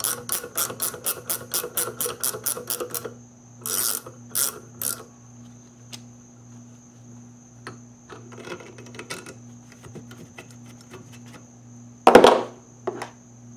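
Ratcheting box-end wrench clicking rapidly, about six clicks a second, as it turns the threaded stud of an LS valve spring compressor bolted to the cylinder head. After about three seconds it slows to a few stronger clicks and then faint scattered ones. Near the end there is one loud metal knock.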